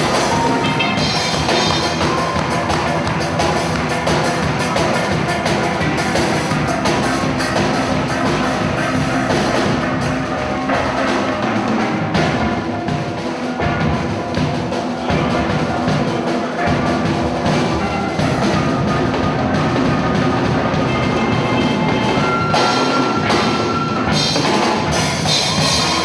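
Steel orchestra playing live: steel pans carrying the tune over drums and percussion.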